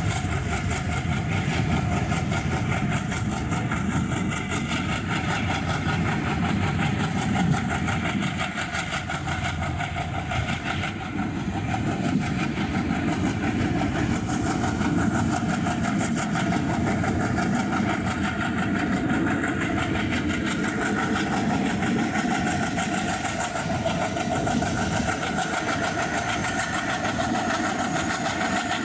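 Diesel train engine running steadily, an even drone.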